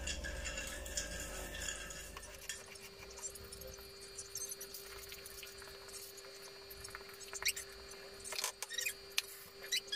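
Faint scraping, with a few light taps in the last few seconds, as a spatula scrapes cake batter from a plastic mixing bowl into a bundt cake pan. A faint steady hum sits underneath.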